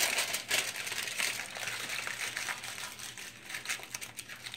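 Aluminium foil crinkling and crackling as it is rolled tightly around a stuffed jalapeño half, busiest at the start and growing fainter.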